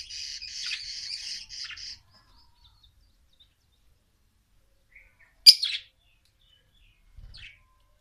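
Caged small parrots (budgerigars, cockatiels and lovebirds) chattering with rapid chirps for about two seconds, then falling mostly quiet. One loud, sharp call comes about five and a half seconds in, and a brief, fainter call follows near the end.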